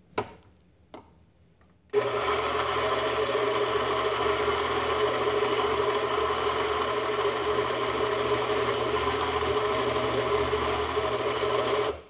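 Two short knocks, then a Baratza Vario+ flat-burr coffee grinder starts about two seconds in and runs steadily, grinding espresso beans into a portafilter, and stops abruptly at the end.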